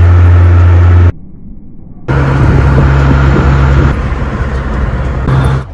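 Steady low drone of a pickup truck's engine and road noise heard from inside the cab while driving. It drops away abruptly about a second in and returns a second later.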